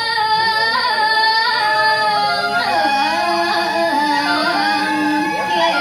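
A woman's voice singing a verse of Balinese geguritan (sung poetry) unaccompanied, in long drawn-out notes that glide and waver between pitches.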